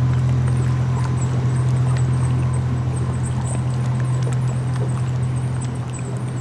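Narrowboat engine running at a steady cruising speed, a deep even drone, with the boat moving through the water.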